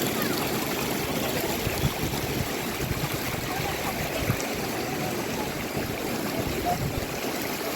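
Water trickling and sloshing in the shallows, with a few small knocks.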